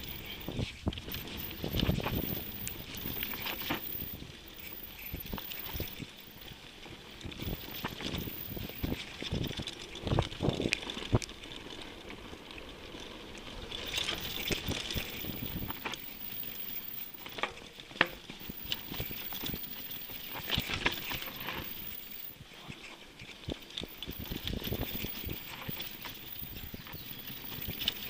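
Mountain bike rolling down a dirt trail: uneven tyre noise with many short rattles and knocks from the bike over rough ground, swelling louder in several places.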